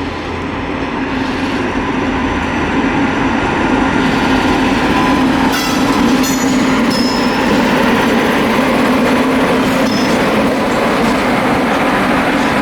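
Express passenger train running through a station at high speed, its wheels rumbling and clattering over the rail joints and points. The sound builds over the first couple of seconds as the coaches come close, then stays loud, with a few brief high squeals or clicks about halfway through.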